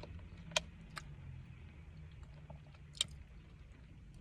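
Quiet eating sounds: three sharp clicks over a faint, steady low hum.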